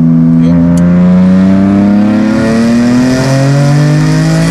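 Tuned BMW turbocharged straight-six under hard acceleration, its engine note climbing steadily in pitch as it pulls through a gear.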